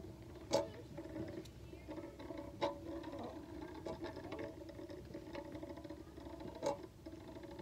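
Two Beyblade Burst spinning tops whirring steadily on a metal dish, with a few sharp clacks as they knock into each other.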